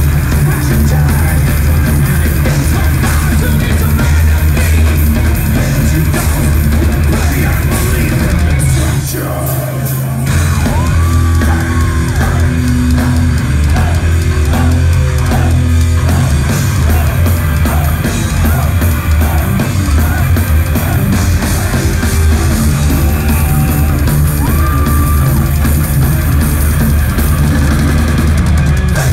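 Thrash metal band playing live: distorted electric guitars, bass and fast drums, heavy and boomy in the low end as heard from the audience floor. About nine seconds in the music drops back briefly, then a lead guitar comes in with bent notes over the riff.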